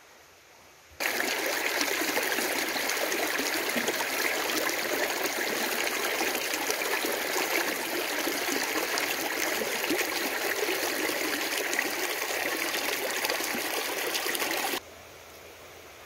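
Shallow stream running over stones: a steady rush and trickle of water that starts suddenly about a second in and cuts off sharply near the end.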